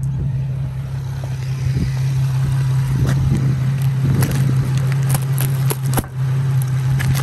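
Plastic bubble wrap rustling and crackling as it is handled and cut with a knife, over a steady low hum that drops out for a moment about six seconds in.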